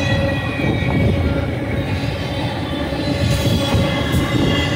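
Double-stack intermodal well cars of a passing freight train rolling by: a steady rumble of steel wheels on rail, with a faint high steady squeal over it.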